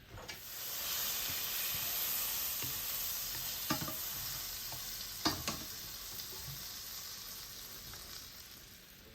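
Hot frying pan sizzling during crepe cooking, swelling up quickly and then slowly dying down, with a couple of light clicks about four and five seconds in.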